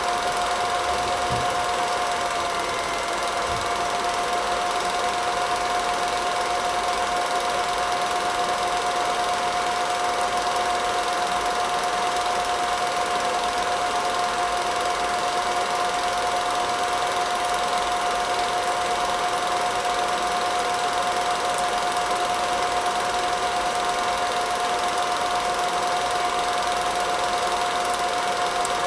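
Film projector running: a steady mechanical rattle with a constant whine, unchanged throughout.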